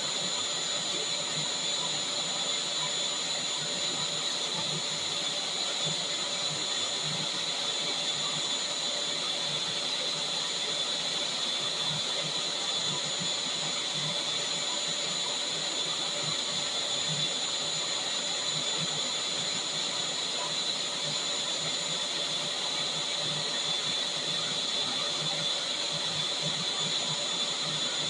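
Vacuum cleaner running steadily: a constant high-pitched whine over a rushing airflow hiss.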